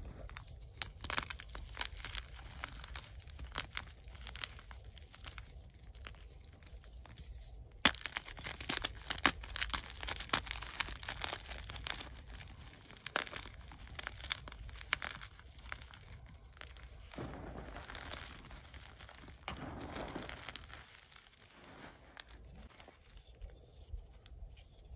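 Soft gym chalk crushed and crumbled in the hands, a dense crackling crunch as the pieces break and grind into powder. The crunching grows louder about eight seconds in, then turns to a softer, smoother crumbling for a few seconds from about seventeen seconds.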